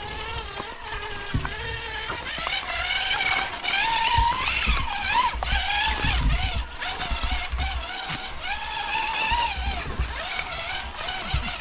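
Electric motors and geartrains of radio-controlled rock crawlers whining, the pitch rising and falling with the throttle, with low thumps in the middle as the trucks climb over rocks.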